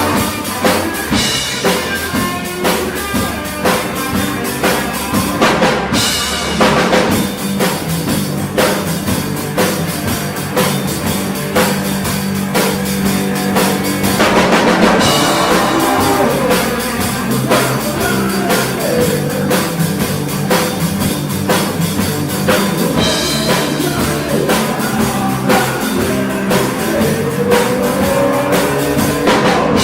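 Rock drum kit played live in a blues-rock song, a steady beat of kick, snare and cymbals with other instruments sustaining pitched notes underneath.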